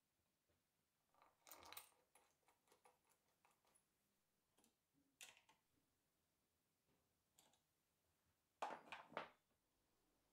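Faint, scattered clicks and light knocks of small metal hardware (bolts, washers and an Allen key) being handled and fitted on plywood, with a louder burst of clatter near the end.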